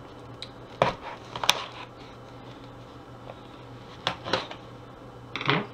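A cardboard shipping box being torn open by hand: sharp snaps and cracks of cardboard and packing tape, a cluster about a second in and another pair about four seconds in. A brief murmur of voice near the end.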